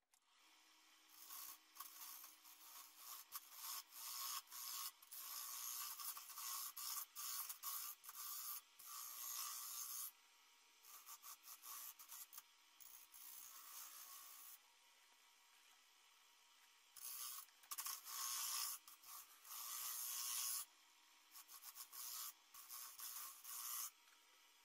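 A carbide turning tool scraping wood from a box elder bowl blank spinning on a wood lathe, in repeated passes that start and stop, quieter for a few seconds midway.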